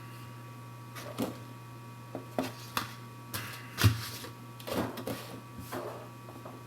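Irregular clicks and knocks from handling the unboxed VoIP box, its adapter and cables, the loudest about four seconds in, over a steady low electrical hum with a faint high whine.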